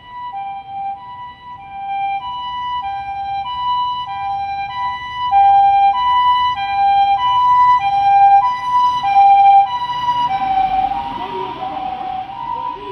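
Japanese ambulance's electronic two-tone 'pee-po' siren of the Osaka type, alternating a high and a low tone in a steady rhythm of about three high-low pairs every two seconds. It grows louder toward the middle, and a rushing noise joins from about ten seconds in.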